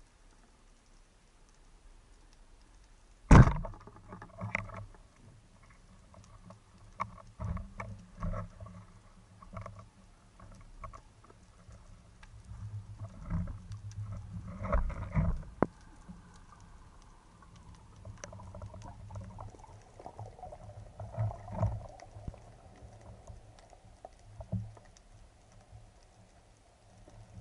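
Underwater, a band-powered speargun fires with one sharp crack about three seconds in. Irregular knocks and clatters follow as the speared white seabream struggles on the shaft and the shaft and shooting line are handled.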